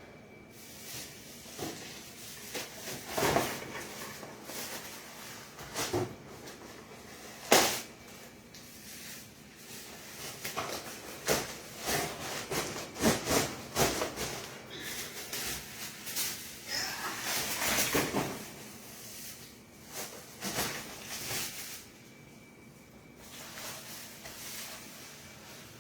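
A package being handled and opened: scattered knocks and clicks, with a long stretch of rustling and scraping packaging in the middle.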